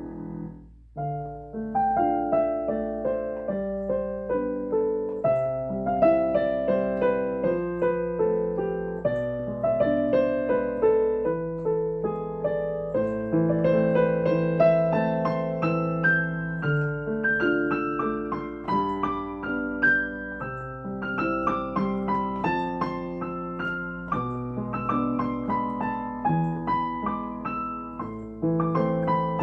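Solo piano playing an instrumental melody over chords. There is a brief break about a second in, after which the playing carries on without pause.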